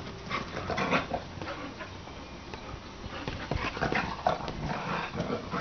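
Dogs playing and chasing one another, making short, uneven vocal sounds.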